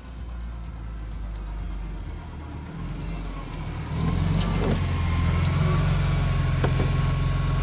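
Low, steady engine-like rumble that gets louder about four seconds in, with a faint high-pitched whine over it.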